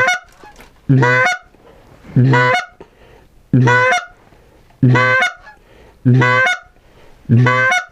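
Canada goose call blown by a hunter: seven loud, evenly paced honks, about one every 1.2 seconds, each breaking from a low note up to a higher one, calling a flock in to the decoys.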